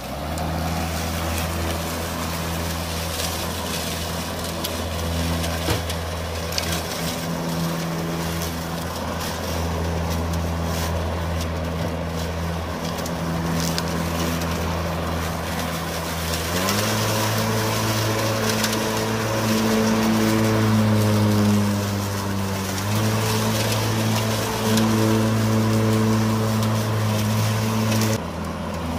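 Makita 18V X2 (36V) brushless cordless lawn mower running with a steady humming motor-and-blade tone. About two-thirds of the way in the pitch steps up, sags briefly, then holds, and it drops back just before the end.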